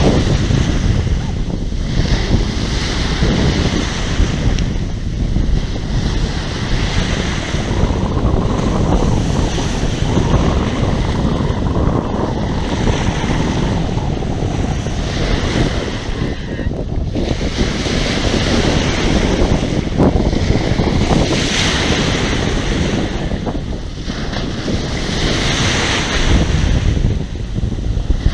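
Sea waves washing and breaking, with heavy wind noise on the microphone. The higher wash of the surf swells louder every few seconds, most strongly twice in the last third.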